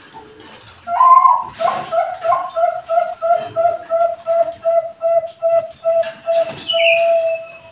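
Zebra dove (perkutut bangkok) singing its full song: a higher opening note, then a fast run of about three short, even coos a second, ending in one long held note. A higher, falling whistle sounds briefly over the start of the final note. It is a lure song (pancingan), played to set other perkututs singing.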